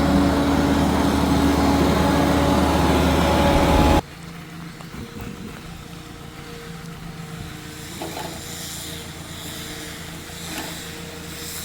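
Boatyard boat-lift engine running steadily with a pitched drone; about four seconds in it cuts off abruptly to a much quieter steady mechanical hum.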